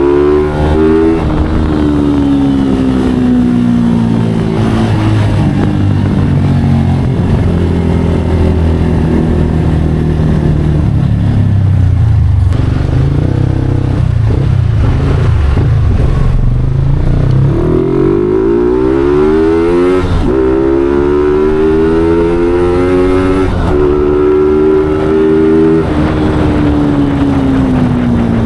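Yamaha Sniper 150 V2 motorcycle engine running loud through a 'super stock' exhaust. Its pitch falls over the first few seconds, runs low and steady for a while, climbs sharply about two-thirds of the way through, holds high, then falls off again near the end.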